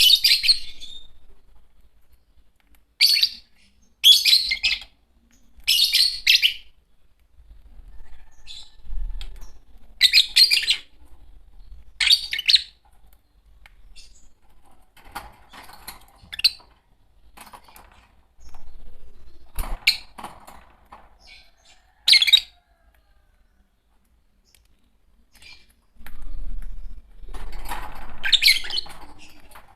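A pair of green Fischer's lovebirds chirping in short, shrill bursts every second or two, with quieter chatter and gaps between them.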